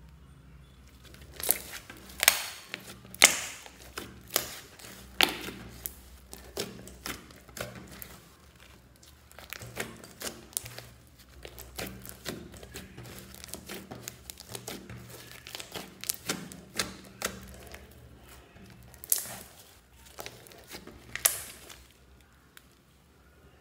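Hands squeezing, poking and stretching glittery shaving foam slime, giving irregular wet clicks and pops. The pops come thickest a couple of seconds in and again near the end.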